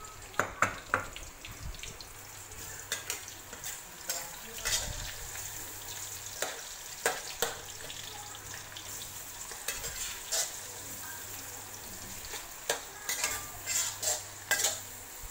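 Garlic and onions sizzling in hot oil in a wok, with a metal spatula scraping and clacking against the pan as they are stirred, in repeated bursts over the steady sizzle.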